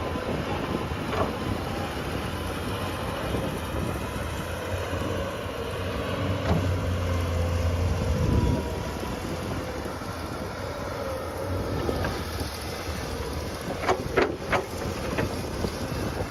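Heavy machine engine running steadily, its low rumble swelling for a couple of seconds midway, with a few sharp knocks near the end.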